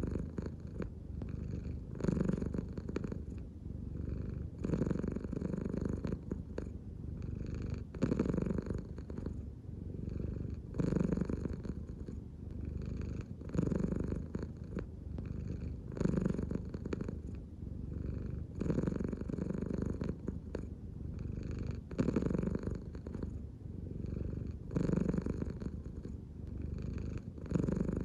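American Shorthair cat purring steadily, the purr swelling and easing with each breath about every two and a half to three seconds.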